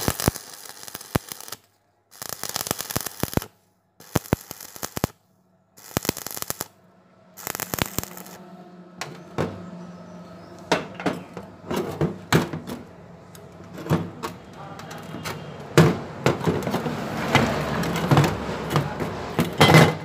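Stick-welding arc on steel angle iron, crackling with sharp pops and snaps. In the first half it cuts off and restarts several times. From about halfway it runs without a break over a low steady hum, and it grows louder near the end.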